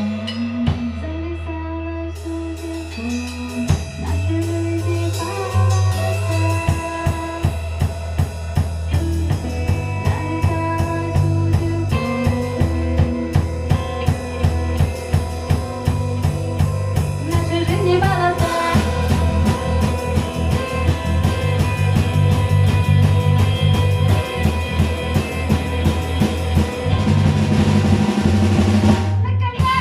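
Music with a drum kit, bass and guitar; a steady drum beat comes in about four seconds in and keeps going.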